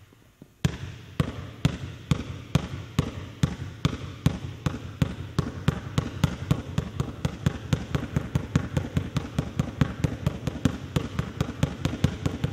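Basketball dribbled in a front V crossover, bouncing from hand to hand on a hardwood gym floor in a steady rhythm of about three bounces a second. It starts about half a second in.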